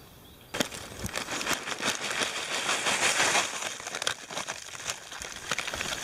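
Close-up rustling and crinkling of a plastic bag and hands handling it, full of small clicks and crackles, starting abruptly about half a second in, as bread pieces are tipped onto a wooden feeder platform.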